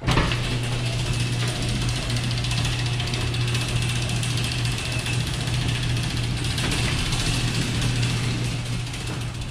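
Glass-paneled sectional garage door rising on its opener: a steady electric motor hum with the rattle of rollers running up the track, starting suddenly and easing a little near the end.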